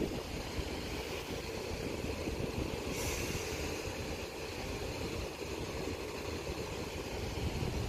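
Class 444 electric multiple unit approaching the level crossing: a steady rumble, with a higher hiss joining about three seconds in.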